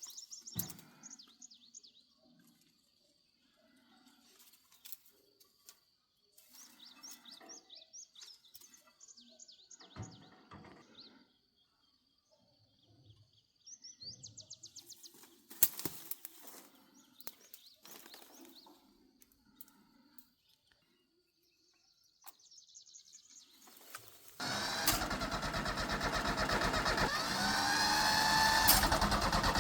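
Birds chirping with scattered small clinks and handling noises; about three-quarters of the way through, a loud engine sound starts suddenly, runs for about five seconds with its pitch rising, then cuts off.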